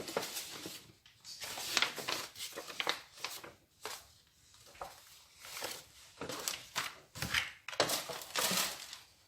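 Packaging rustling and crinkling in irregular bursts as a parcel of shoes is unpacked by hand.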